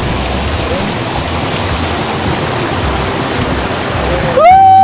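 Stream water rushing steadily over rocks. Near the end, a person gives one loud, high held call, a noise made to drive off bears.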